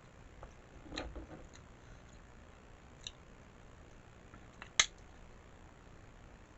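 Eating sounds: a soft bite-and-chew cluster about a second in, a faint click near three seconds, and a sharp click or crunch near five seconds.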